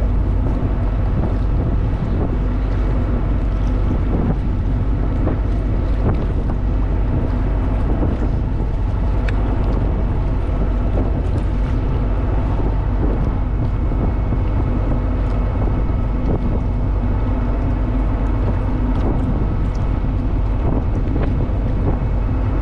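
Boat underway at steady speed: a constant engine drone under the rush of water along the hull, with wind on the microphone.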